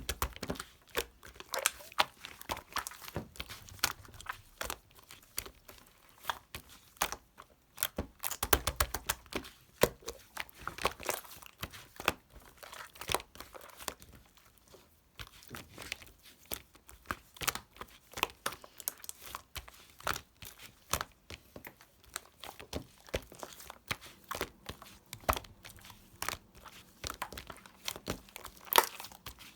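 Slime being squeezed and worked by hand, giving an irregular run of sticky clicks, pops and crackles, with a denser flurry about eight seconds in.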